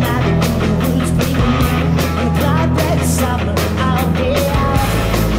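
Live rock band playing: electric guitars and bass over a steady drum beat, with a guitar melody weaving above the held bass notes.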